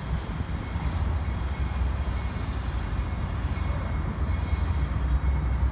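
Twin GE P42DC diesel locomotives pulling a passenger train slowly out of the yard, giving a steady low engine rumble with no horn.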